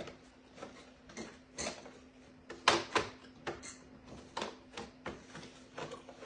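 Irregular plastic clicks and knocks as parts of a Roomba robot vacuum are handled and fitted back in, about a dozen in all, the loudest a few near the middle.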